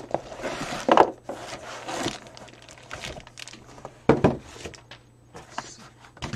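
Cardboard shipping box being handled and opened: cardboard scraping and rustling, with louder knocks about a second in and again past the middle. Plastic wrapping crinkles as the laptop in its bag is pulled out and set down.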